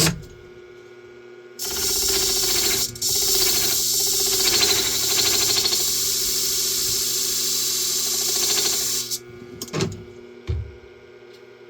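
A hair shear's bevel edge being ground on a motorised rotating sharpening disc: a loud, steady grinding hiss starts about two seconds in, dips briefly a second later, and stops about two and a half seconds before the end. The machine's motor hums steadily underneath throughout.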